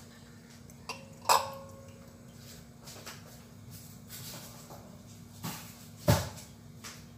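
Metal cookware clattering as it is handled: two sharp clanks, the first ringing briefly, with lighter knocks and clicks between them.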